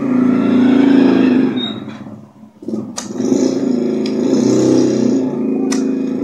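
A TV loudspeaker gives out a loud, humming, snoring buzz. The buzz is the symptom of the set's mainboard supply voltage dropping. It dies away about two seconds in and comes back with a click half a second later.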